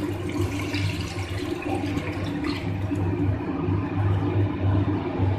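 Milk pouring in a thick stream from a steel vessel into a steel pot, a steady splashing fill that thins to a trickle near the end.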